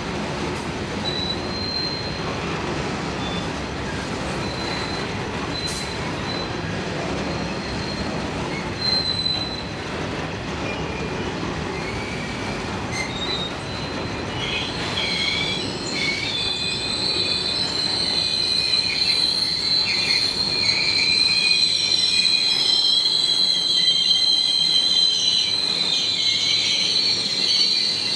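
Train rolling past with its steel wheels squealing against the rail over a low rumble. The squeal grows louder and steadier from about halfway, while the rumble fades.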